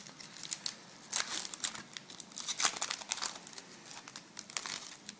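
Foil wrapper of a 2011 Topps Chrome baseball card pack crinkling as it is handled and torn open, a run of irregular sharp crackles.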